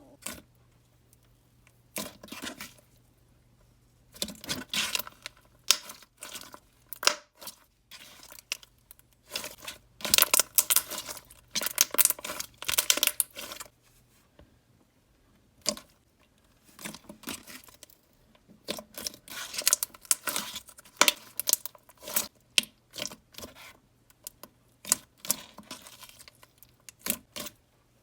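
Thick, glossy slime topped with marshmallow foam beads being squeezed and stretched by hand, in irregular bursts of crackling and sticky popping separated by short quiet gaps.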